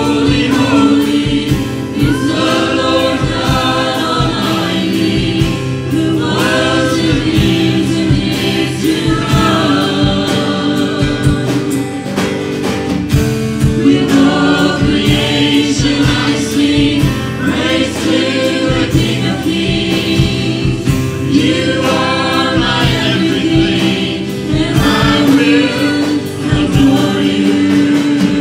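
Gospel worship song: several singers in a church praise team singing together in phrases, over steady instrumental accompaniment.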